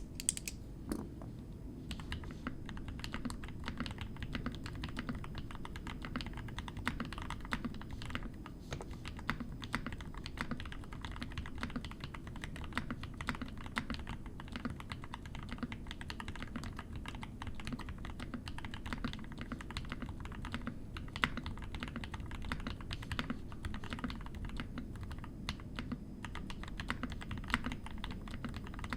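Continuous typing on a custom mechanical keyboard: lubed full-POM linear switches (Bingsu) on an FR4 plate in a tray-mount concrete case, with GMK keycaps, giving a steady stream of muted keystroke clacks.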